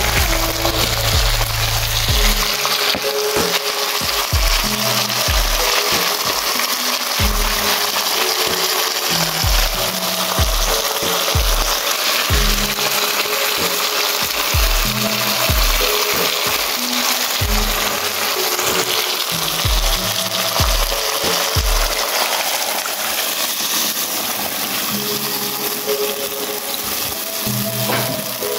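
Seasoned fish frying in hot oil: a steady sizzle, under background music with a bass line.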